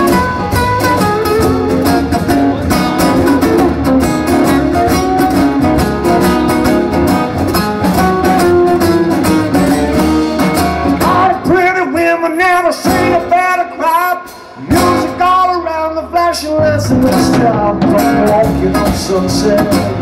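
Live band playing an instrumental passage: two amplified acoustic guitars with a drum kit, a picked melody line over strummed chords. A little past the middle the drums and low end drop out for a few seconds, leaving the bending melody line alone before the full band comes back in.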